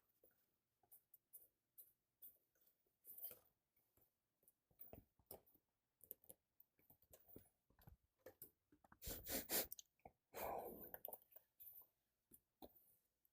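Light, scattered clicks and rustles of a graphics card and its box being handled during unboxing, with two louder rustling stretches about nine and ten and a half seconds in.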